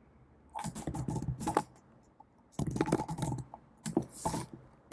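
Typing on a computer keyboard: a few short runs of rapid keystrokes with brief pauses between them.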